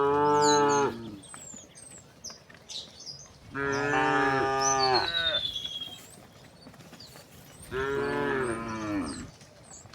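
Cows mooing: three long moos, one right at the start, one about four seconds in and one near the end.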